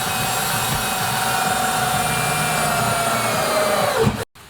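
Handheld electric power tool motor running steadily at full speed with a high whine. About four seconds in its pitch drops as it is let off.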